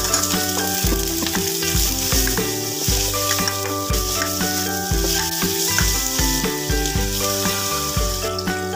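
Ground garlic and pepper paste sizzling in hot oil while it is stirred in the pan; the sizzle stops near the end.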